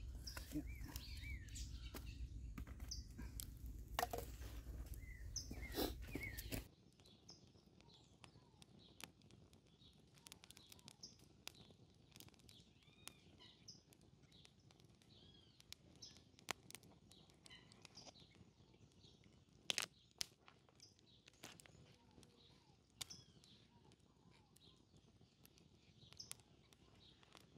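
Small birds chirping over a quiet outdoor background, with a wood fire crackling in scattered sharp pops. A heavy low rumble covers the first six seconds or so and stops abruptly.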